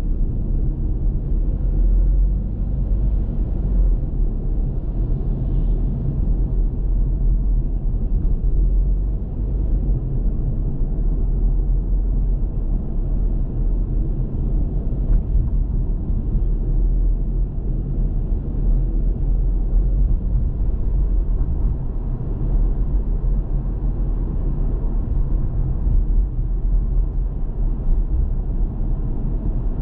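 Steady low rumble of a car being driven: engine and road noise with no pauses or sharp events.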